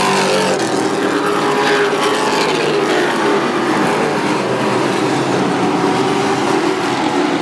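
A field of race trucks running at speed around a short oval track, several engine notes overlapping. Engine pitch falls as trucks go by, once at the start and again about two seconds in.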